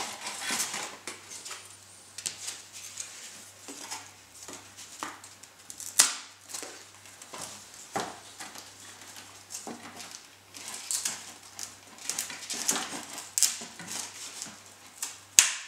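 Foamboard and depron model-airplane parts being handled and pressed into place: irregular light taps, clicks and rustles, with a few sharper knocks.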